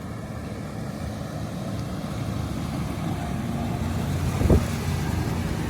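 A vehicle driving, with steady engine and road noise that grows louder, and a single thump about four and a half seconds in.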